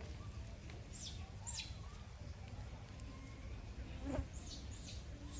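Outdoor ambience: a steady low rumble with several short, high chirps that fall in pitch. A single soft knock comes about four seconds in.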